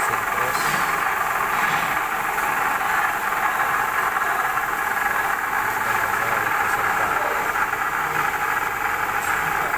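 Kiheung KMU-1.5 S milling machine running while its cutter face-mills an aluminium workpiece flat: a steady, even cutting and machine noise.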